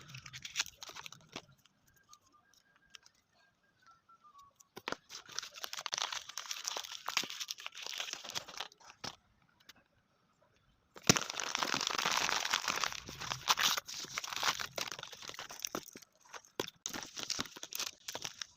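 Plastic blind-bag packaging crinkling and crackling as it is handled and opened. It comes in spells with quiet gaps between them, and the longest, loudest spell is about eleven to sixteen seconds in.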